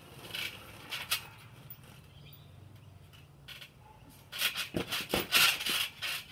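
Trampoline being bounced on: a few isolated soft thuds, then from about four seconds in a quick, loud run of thuds and creaks from the trampoline as someone bounces on it.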